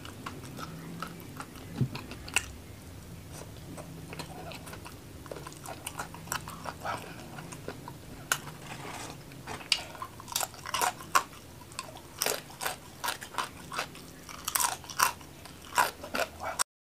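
A person chewing food close to the microphone, with crisp crunching clicks that come thick and fast in the second half. The sound cuts off abruptly just before the end.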